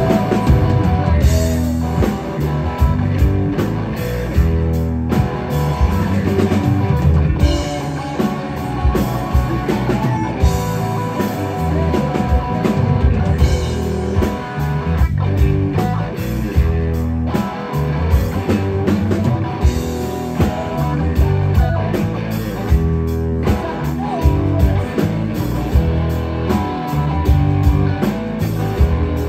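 Live rock band playing an instrumental passage: electric guitar over bass guitar and a drum kit, with a steady beat and no singing.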